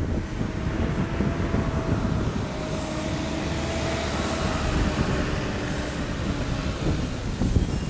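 RC model airplane's motor heard in flight as a thin whine that rises a little in pitch, then falls away. Wind buffets the microphone throughout.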